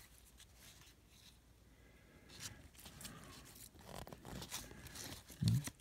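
Baseball trading cards being slid one off another in a hand-held stack, making soft, irregular scrapes and flicks of card stock. A short low sound comes near the end.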